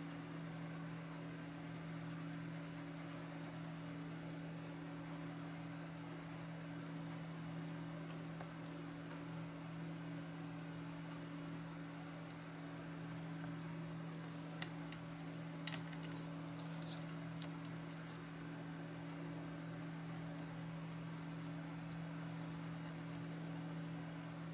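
Prismacolor coloured pencil scratching on cardstock in fast, fine strokes, over a steady low hum. A few sharp clicks come about halfway through.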